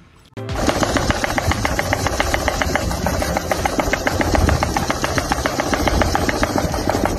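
Motor-driven sand sieve shaking fast: a loud, even, rapid rattling over a motor's steady hum, starting about half a second in.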